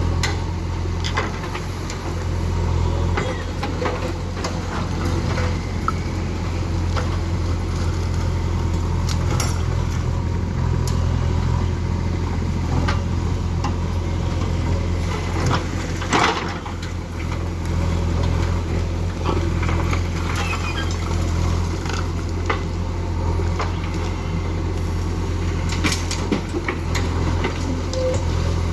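Diesel engine of a backhoe loader at work, running steadily, with scattered knocks and clatters of waste being scooped and dropped into a tractor trolley; one louder crash about halfway through.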